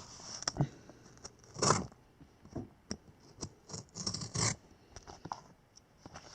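A package being opened by hand: irregular scraping, scratching and rustling of its wrapping, with scattered small clicks and a couple of louder scrapes.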